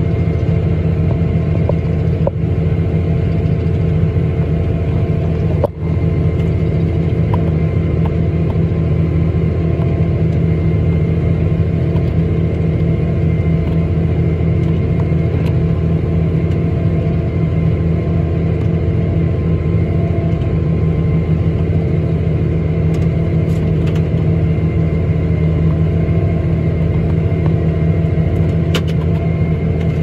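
Farm harvest machine's engine and grain unloading auger running at a steady drone while wheat pours into a grain trailer. The low hum holds even throughout, with a few steady whining tones above it.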